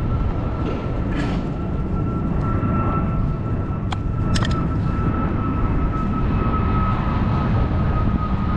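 Steady low rumble of background noise with a faint high steady tone, and two sharp clicks about four seconds in.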